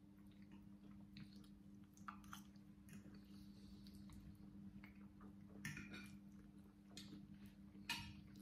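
Quiet eating: faint clicks of forks against plates and soft chewing, a few clicks slightly louder, over a steady low hum.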